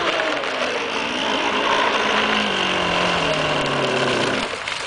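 Radio-controlled model speedboat's motors running with a steady high whine. Over the last two seconds the pitch falls and then cuts off as the boat is throttled back.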